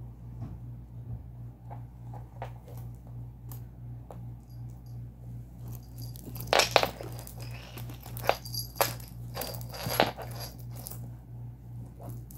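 A kitten playing with a backpack's zipper pull and strap: scattered clicks and rattles with light metallic jingles, busiest and loudest between about six and ten seconds in, over a steady low hum.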